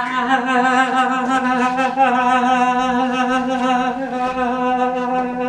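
A man singing one long held note, a drawn-out unaccompanied 'baaa', with a slight waver in pitch.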